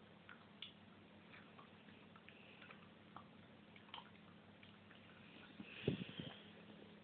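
Boxer puppy chewing and gnawing on something: faint scattered clicks and smacks of its mouth, with a short cluster of louder ones near the end.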